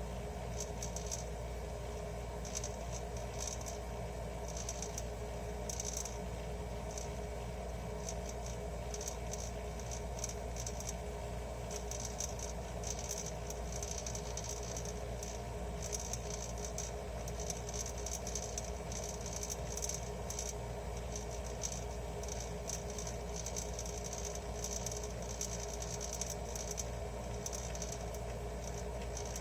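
Hitachi RD-16FR dehumidifier running with its compressor on: a steady hum overlaid by an irregular, rapid rattling and clicking. This is an abnormal rattle and knock that sets in about a minute after the compressor starts.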